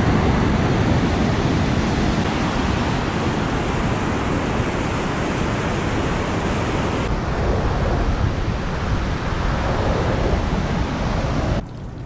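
Loud, steady rush of a waterfall's whitewater mixed with wind on the microphone. The top hiss thins about seven seconds in, and the level drops sharply just before the end.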